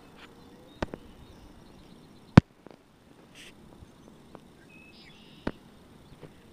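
A few sharp clicks, the loudest about two and a half seconds in, with others near the start and about five and a half seconds in, over a faint steady hush.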